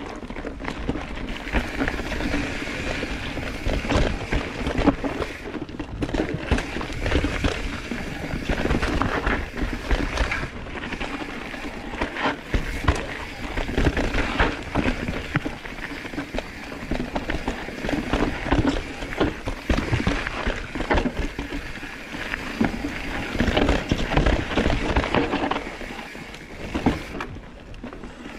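Mountain bike ridden over a rough, rocky trail: tyres rolling and crunching over the ground, with constant rattling and knocking from the bike over bumps.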